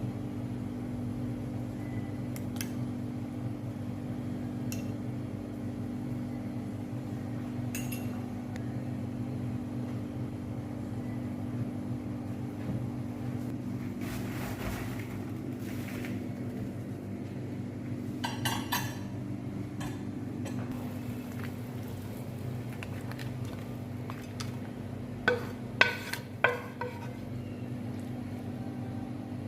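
Kitchen sounds: a steady low hum throughout, with a few light clinks and knocks of pots or utensils, a cluster of them past the middle and the loudest ones near the end.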